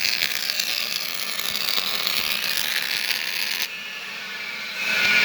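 OVERMAN semi-automatic MIG welder's arc crackling and hissing as it welds. It stops a little over three and a half seconds in and strikes again near the end.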